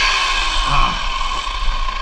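Corded electric chainsaw running with a steady whine.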